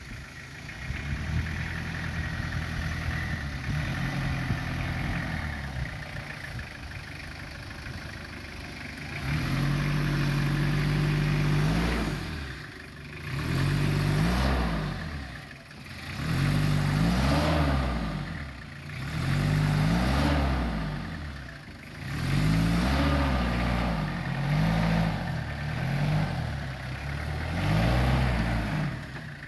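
Lifted Toyota Hilux pickup's engine pulling at low revs as the truck crawls over rough, humpy ground. From about nine seconds in it revs up and drops back again and again, every two to three seconds, as the driver powers it over the humps.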